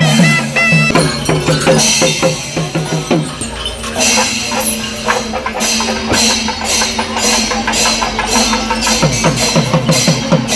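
Music with drums and percussion keeping a fast, regular beat, with a low tone held through the middle.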